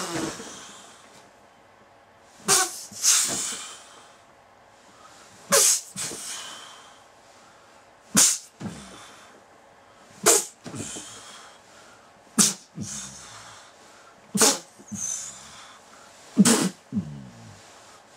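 A person's sharp, explosive gasps or cries, coming about every two seconds, each followed by breathy exhaling and, toward the end, short low groans: vocalising through a prolonged orgasm.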